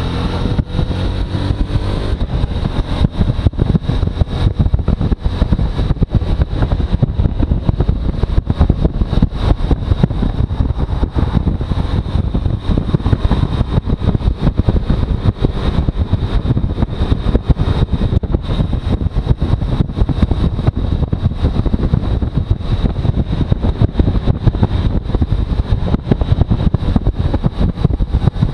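Suzuki V-Strom motorcycle under way: engine running with heavy, fluttering wind buffeting on the microphone. A faint steady high whine runs underneath.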